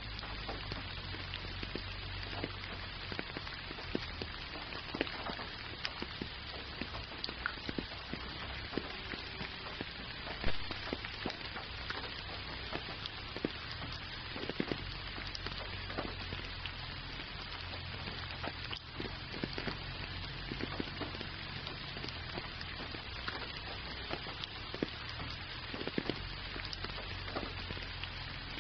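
Gentle rain falling steadily, an even hiss with scattered individual drops ticking close by; one drop lands louder about ten seconds in.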